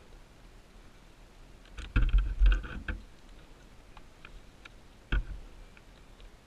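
A cluster of knocks and low rumbling about two seconds in, then a single sharp thump about five seconds in; the dirt bike's engine is not running.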